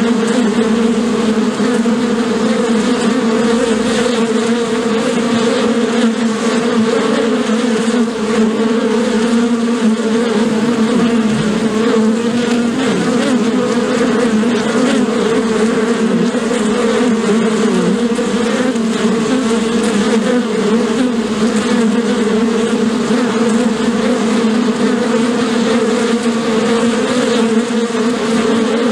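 Many bees buzzing together in a steady, dense hum that neither starts nor stops, with a slight waver in pitch.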